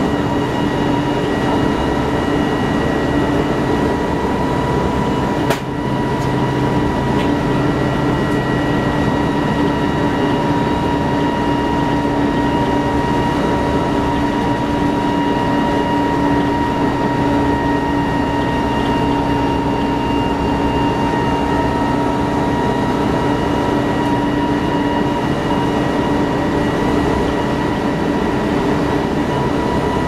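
Interior ride noise of a 1994 TMC RTS bus cruising at a steady speed: the Detroit Diesel Series 50 engine drones, with a steady high whine from the Allison transmission and driveline. There is one sharp click about five and a half seconds in.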